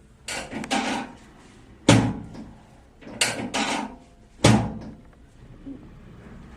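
Hands-on chiropractic manipulation of a patient's spine: twice a short rustle of shifting bodies is followed by a sharp, loud impact, the thrusts of the adjustment, about two and a half seconds apart.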